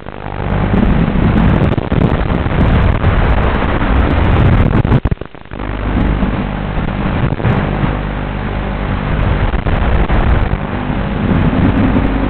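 FPV quadcopter's motors and propellers buzzing with wind rush, picked up by the onboard camera's microphone, the pitch shifting with throttle. Throttle drops away briefly about five seconds in, then the buzz picks up again.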